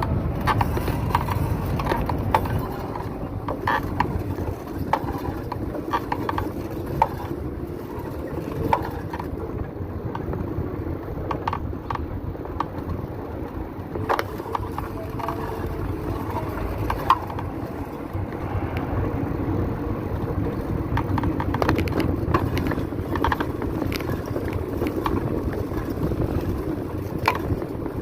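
Bicycle making repeated sharp clicks while being pedaled, over a steady rumble of riding noise.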